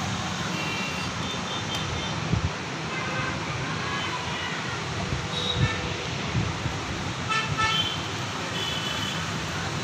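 Steady street traffic noise with several short horn toots and a few soft thumps.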